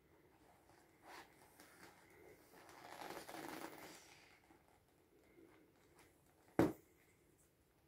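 Inflatable vinyl pool toy being handled, the vinyl rustling for a second or so in the middle, then one sharp click near the end.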